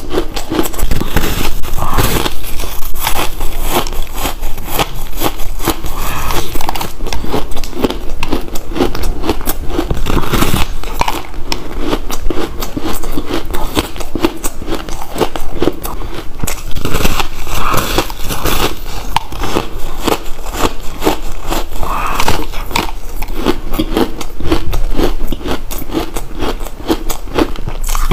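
Crumbly purple ice block being bitten and chewed, with loud, dense crunching and crackling as the ice breaks apart between the teeth, bite after bite.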